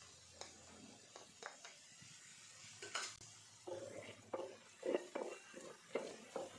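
Wooden spoon stirring and scraping minced garlic and chopped red onion in an oiled pan, with a light sizzle. Quiet at first with a few small knocks, then a run of quick scraping strokes from a bit past halfway.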